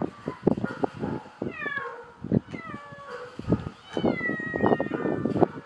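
Domestic cat meowing several times, each meow falling in pitch, the last one longer, over a run of short knocks and rustles.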